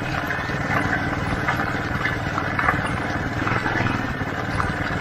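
A small motor vehicle running at a steady pace along a dirt track, a continuous low rumble with scattered light clicks over it.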